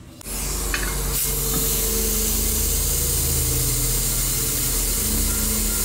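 Electric air compressor switching on about a quarter second in and running steadily, a low motor hum under a strong hiss, to charge the pressure tank's air chamber.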